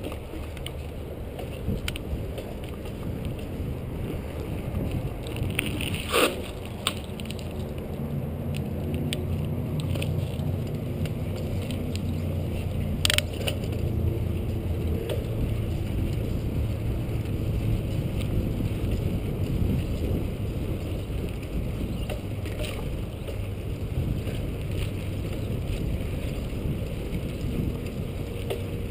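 Bicycle riding along a paved trail: steady wind rumble on the microphone with the rattle of the bike and its tyres, and two sharp knocks about six and thirteen seconds in.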